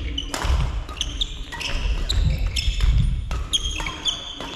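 Badminton doubles rally on an indoor court: rackets striking the shuttlecock in repeated sharp hits, with shoes squeaking on the court floor and footsteps thudding.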